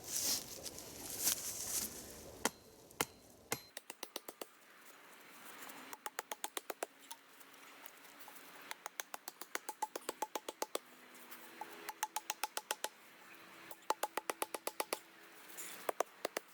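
Wooden stakes being driven in with an axe. The knocks come in quick runs of sharp strikes, several clusters in a row, after a few seconds of rustling and handling.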